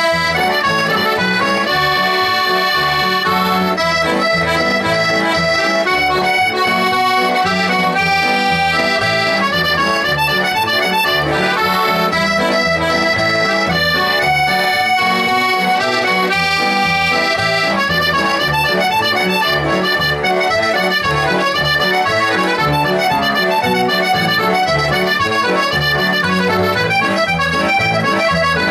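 Button accordion playing a melody in sustained reedy notes, with an electric piano accompanying in a steady rhythm beneath it.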